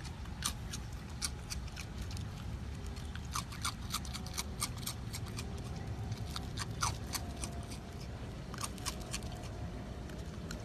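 A raccoon chewing crunchy ring cereal, with irregular crisp cracks that come in quick clusters.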